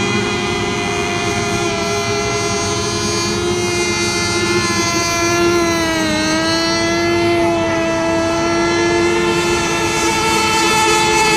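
Several radio-controlled racing boat engines running at high revs with a steady high whine; about six seconds in the pitch dips briefly and climbs back.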